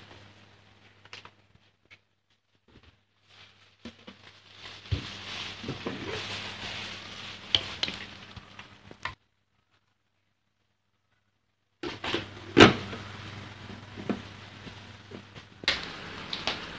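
Plastic packaging crinkling and hard plastic blender parts clicking and knocking as they are unpacked and handled, with one sharper knock after a stretch of dead silence in the middle.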